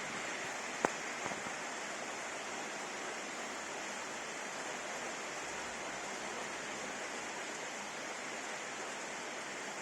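Steady rain from a downpour during a storm, falling evenly, with a sharp tap about a second in.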